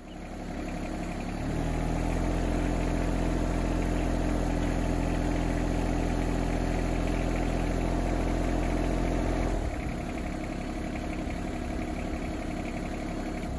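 Yanmar SA324 compact tractor's three-cylinder diesel engine running steadily. About a second and a half in it gets louder and deeper and holds there until nearly ten seconds in, then eases back to a lighter run, while the engine drives the hydraulics raising the YL210 front loader.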